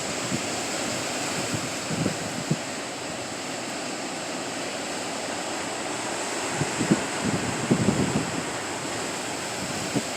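Sea surf washing steadily on the shore, with wind buffeting the microphone in low gusts about two seconds in and again near the eight-second mark.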